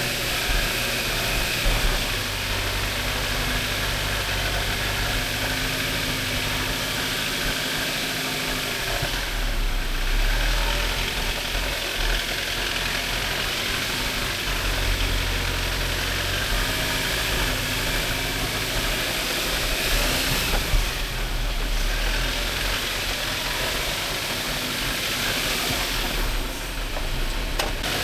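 Jeep Wrangler engine running steadily at low revs, with a constant hiss over it.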